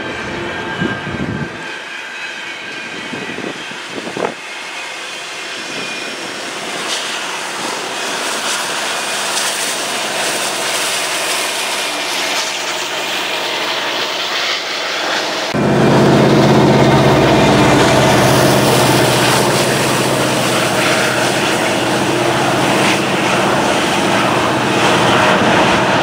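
Double-stack intermodal well cars of a long freight train rolling past: a continuous rumble of steel wheels on rail, with a couple of sharp knocks in the first few seconds. About halfway through, the sound jumps suddenly louder and deeper, with a steady low drone under the rolling noise.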